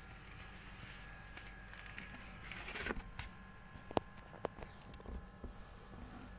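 Quiet rustling of cloth in a cardboard box as a cat moves about on it, swelling near the middle, with two sharp clicks about four seconds in.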